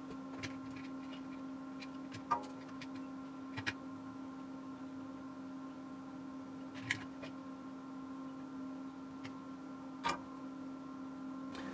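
Scattered light clicks and taps from hands handling a standby lamp's plastic housing, circuit board and wiring, about six of them with the loudest a little over two seconds in, over a steady low hum.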